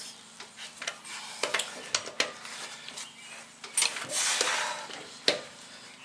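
Long-handled socket wrench tightening a car wheel's lug nuts: scattered sharp metal clicks and clinks, with a short rustling noise about four seconds in.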